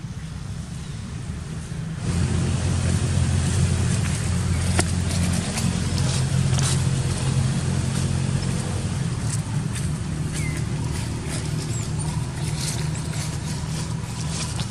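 A motor vehicle's engine running steadily, a low rumble that swells in about two seconds in, with scattered light clicks and a few short chirps over it.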